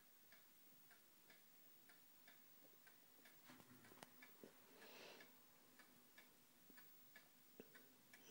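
Near silence with a faint, regular ticking, about three ticks a second, and a short soft hiss about five seconds in.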